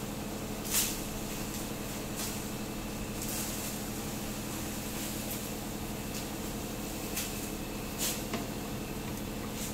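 Bucket truck's engine running steadily, with a few short, sharp knocks, the loudest about a second in and again near the end.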